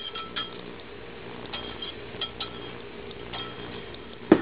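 A metal fork clinking and scraping against the rim of a bowl as egg-and-milk custard mix is poured and scraped out: scattered light ringing clinks, then one louder knock near the end.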